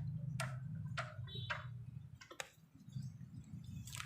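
Mountain bike's freewheel ratchet clicking slowly as it turns, about two sharp clicks a second, thinning out after two seconds or so, over a steady low hum.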